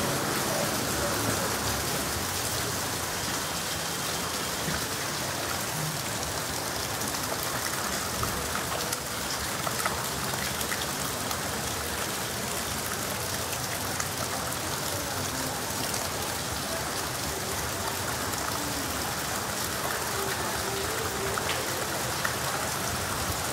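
Heavy rain falling steadily, a dense even hiss with scattered small ticks of drops.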